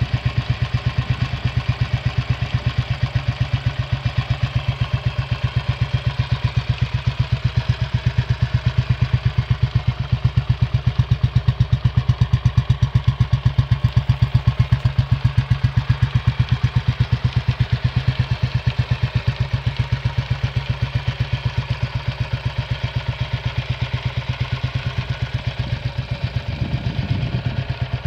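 Freshly rebuilt Royal Enfield Bullet 500's single-cylinder four-stroke engine idling with an even, regular beat, with a brief extra noise a little before the end.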